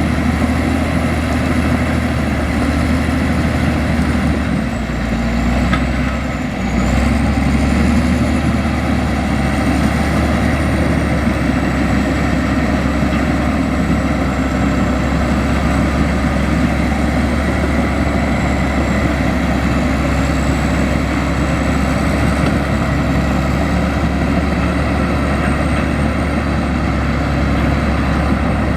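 Komatsu bulldozer's diesel engine running steadily under load, dipping briefly about six seconds in before picking back up, with a faint wavering high whine above it.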